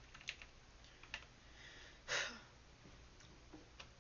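A few separate faint clicks of computer keys, with one short, louder puff of noise about two seconds in.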